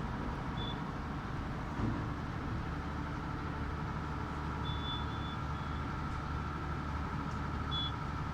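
Steady engine-like rumble with a faint steady whine, and a few brief high-pitched chirps about half a second, five and eight seconds in.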